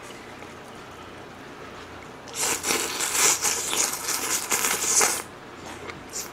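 A person slurping a mouthful of cold noodles (naengmyeon): one long, wet slurp starting about two seconds in and lasting about three seconds.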